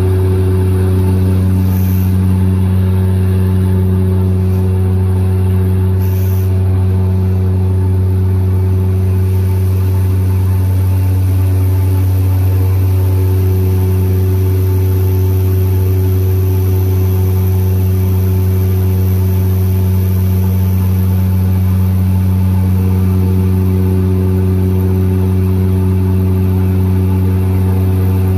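Seaplane propeller engines droning steadily in the passenger cabin while the aircraft climbs away after takeoff: a deep, even hum with higher steady tones above it.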